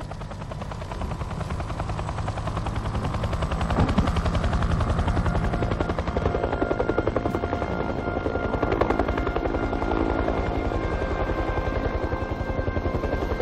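Small single-rotor helicopter running and lifting off, its rotor beating evenly and growing louder over the first few seconds. Steady higher tones join the rotor sound from about halfway.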